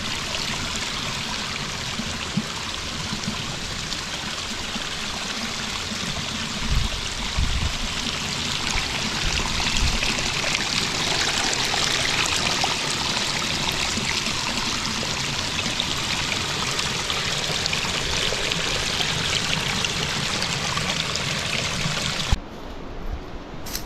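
Small mountain stream running, a steady rush of flowing water. A few low bumps come in partway through, and near the end the rush cuts off abruptly to a quieter hiss.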